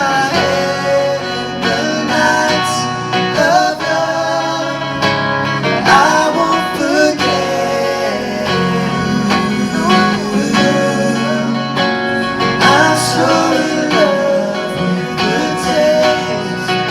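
Live band music: strummed guitar with a singing voice over it.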